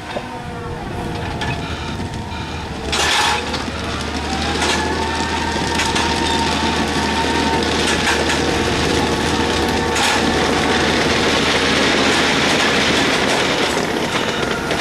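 Hydraulic excavator running steadily, with a whine that rises and falls as it works, while it handles concrete railway sleepers. A loud clank about three seconds in, followed by a few lighter knocks.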